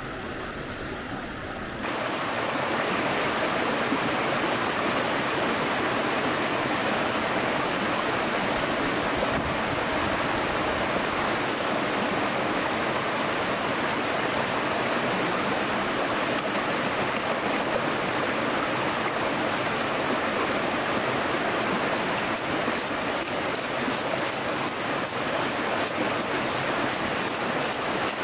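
Mountain stream rushing steadily over rocks. Near the end a quick run of faint high ticks, about three a second, comes in over the water.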